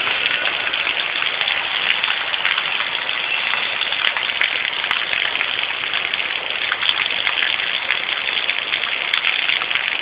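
Heavy rain falling: a steady, dense hiss of drops.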